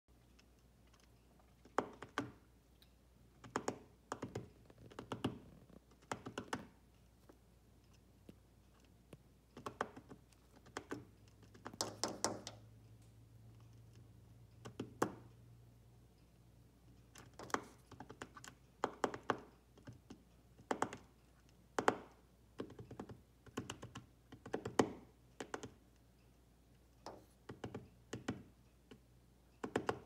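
Bird beaks tapping on a window pane: a cockatiel pecking at the glass from inside, matching the tapping of a woodpecker on the outside. The taps come in short quick clusters every second or two, with a longer rapid run near the middle.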